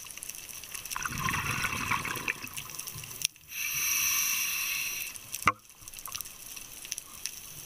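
Scuba diver breathing through a regulator underwater: a burble of exhaled bubbles about a second in, then a steady hiss of inhalation for about two seconds that ends in a click.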